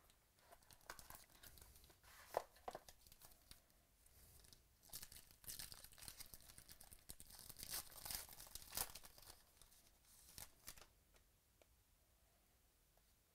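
Foil wrapper of a 2017 Panini Origins football card pack being torn open and crinkled by hand: a run of crackling rustles, loudest in the middle, that dies away about eleven seconds in.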